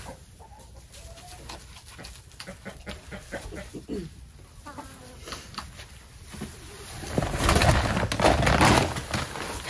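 Backyard chickens clucking with scattered short, soft calls while they feed. About seven seconds in, a louder rustling, crackling noise with many small clicks comes in and runs on.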